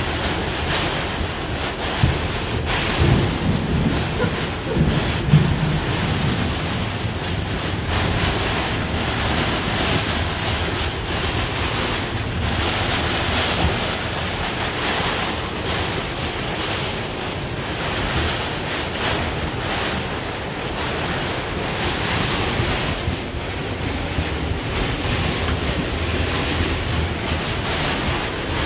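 Storm wind in 60+ mph gusts and driving rain beating on a sailboat's clear vinyl cockpit enclosure: a steady, loud rush of noise, with a few low thumps about two to six seconds in.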